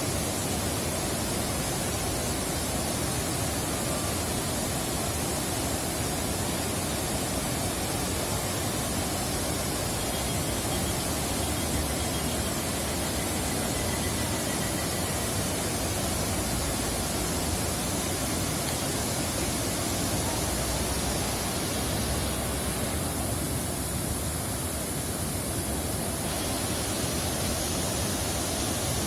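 Steady rushing of a river in flood, an even, unbroken roar of flowing water.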